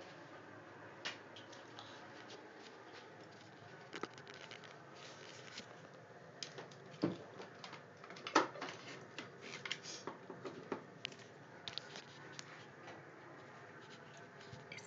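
Handling noise from a phone being moved about: irregular clicks, taps and rubs over a steady low hiss, with the loudest knocks about seven and eight and a half seconds in.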